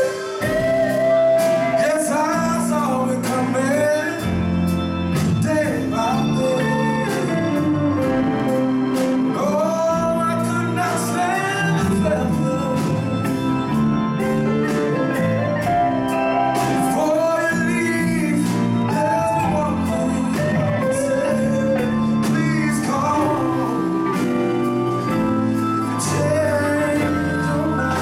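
Live band playing a slow blues-rock song: a man singing lead over two electric guitars, Hammond organ and drums.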